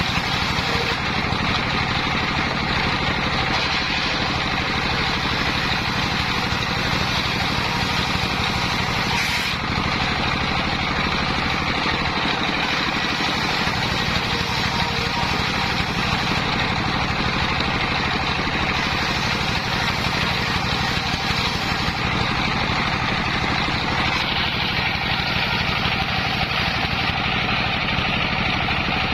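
The engine driving a homemade circular saw rig, running steadily at an even speed.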